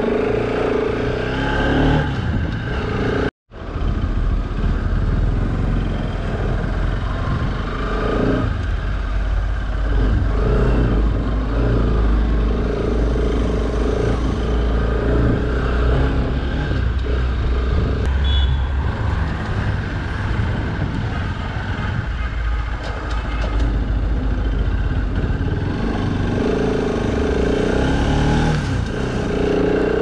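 Motorcycle engine running while the bike is ridden, with wind rumbling on the camera's microphone; the engine note rises and falls with the throttle. The sound cuts out for an instant about three seconds in.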